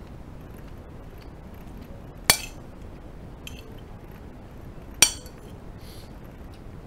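Metal spoon clinking against a ceramic plate while scooping fried rice: two sharp ringing clinks about two and a half seconds apart, with a few faint taps between.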